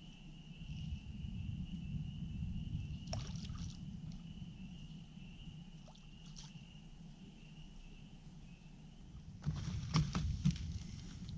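Small waves lapping on a rocky lakeshore, with a steady high insect drone over it and a few faint clicks. About nine and a half seconds in, a cluster of louder knocks and scrapes, the loudest part, as footsteps come down over the shore rocks.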